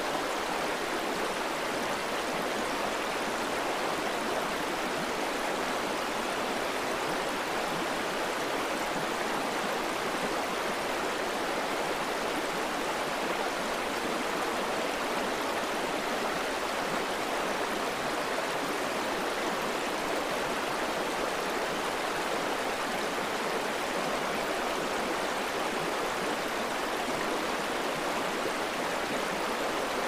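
Fast-flowing water rushing steadily over rocks, an even, unbroken rush of a river in rapids.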